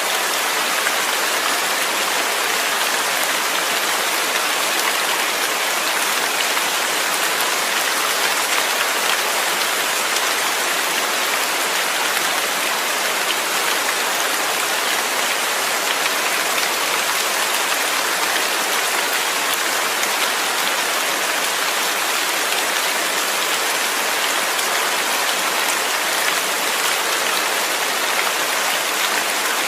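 Steady rain falling, an even dense hiss of many drops with no pauses or changes.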